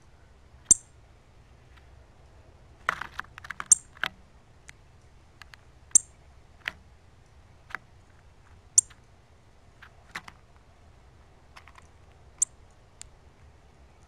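Male northern cardinal giving sharp, high chip calls, one every two to three seconds, with a quick flurry of clicks about three seconds in as it pecks and shuffles seed in the feeder dish.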